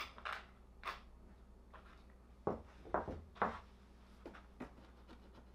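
Scattered knocks, clicks and rattles of plastic body panels and fasteners being handled as the seat and side panels come off a Honda CRF450 dirt bike, with the loudest few knocks close together in the middle.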